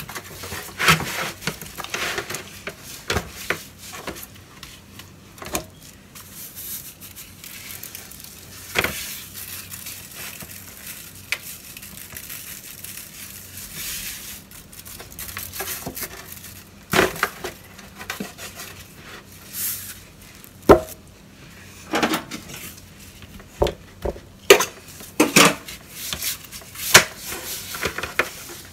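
Gloved hands handling a raw pig head in a disposable aluminium foil pan as it is rubbed with seasoning: irregular knocks, crinkles and rubbing of the thin foil pan, with one sharper knock about two-thirds of the way through.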